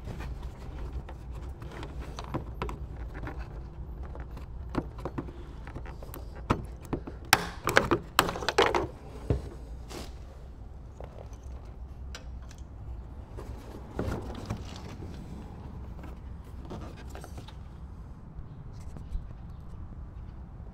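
Plastic and metal clicks and scrapes as a screwdriver pries the clips and the Toyota Yaris headlight housing is worked loose and lifted out, with a louder burst of knocking and scraping about eight seconds in and another around fourteen seconds. A steady low hum runs underneath.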